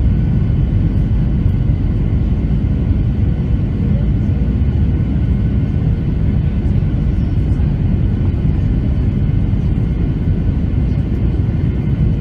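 Cabin noise inside a Boeing 737-700 in descent: the CFM56-7 engines and rushing airflow give a loud, steady low rumble, with a few faint steady whining tones above it.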